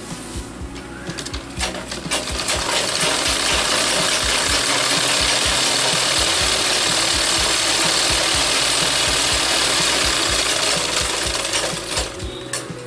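Sewing machine stitching fabric: a few short stop-start bursts, then about ten seconds of running steadily at speed, slowing and stopping near the end.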